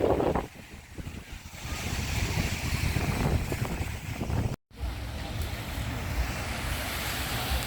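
Sea surf washing on the beach, with wind rumbling on the microphone. The sound cuts out completely for a split second a little past halfway.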